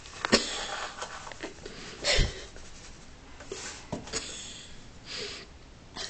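Kitchen handling sounds while salt goes into a mixed drink: several sharp clicks and knocks, one heavier thump about two seconds in, and a few short hissing shakes or rustles.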